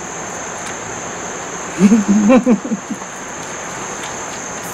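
Steady high-pitched drone of insects chirring. A person's voice sounds briefly about two seconds in.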